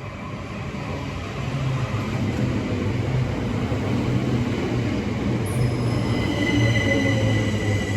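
Southern Class 377 Electrostar electric multiple unit running past, its rumble growing louder. From about five and a half seconds in, a high steady whine joins it.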